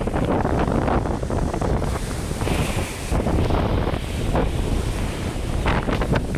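Rough sea surf crashing and washing ashore in a strong wind, with gusts buffeting the microphone.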